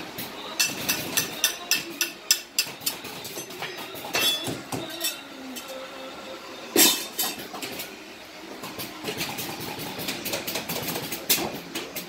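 Irregular sharp knocks and clacks, several a second in clusters, with one louder bang about seven seconds in, over a steady background.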